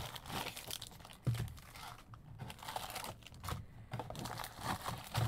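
Foil-wrapped trading card packs crinkling and rustling as they are pulled out of a cardboard card box, with scattered clicks and taps and one sharper knock about a second in.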